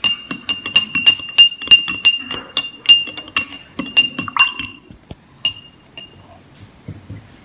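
A steel spoon stirring water in a glass tumbler, clinking against the glass about three to four times a second with a bright ringing tone. The stirring stops a little over halfway through, leaving only a single light clink about a second later.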